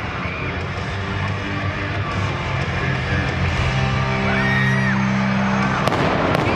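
Loud pregame music over an arena sound system with sustained bass notes, crowd whoops over it, and two sharp bangs near the end from pyrotechnics firing.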